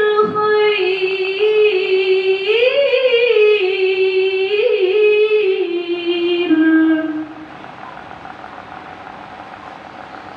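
A woman's voice reciting the Quran in melodic tilawah style into a hand microphone, drawing out the words "du'a'ahu bil-khair" in long ornamented held notes that waver up and down. The voice stops about seven seconds in, leaving a steady background noise.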